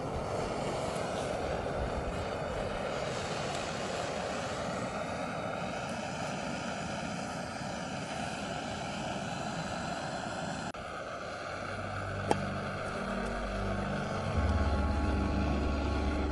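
Small screw-on gas canister stove burning, its flame giving a steady hiss. About eleven seconds in the sound cuts off and background music with a steady low bass comes in, louder near the end.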